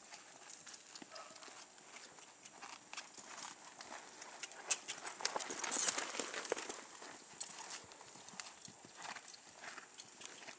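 A ridden horse's hoofbeats on sand as it circles a round pen, a run of quick irregular thuds. They are loudest about halfway through as the horse passes close by, then ease off.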